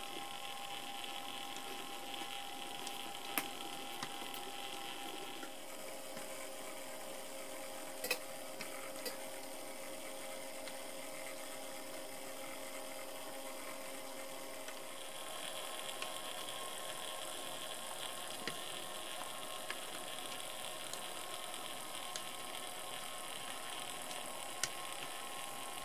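HO-scale model Shay locomotive running, its electric motor and geared drive giving a steady hum and whine whose pitch shifts a couple of times, with a few scattered clicks.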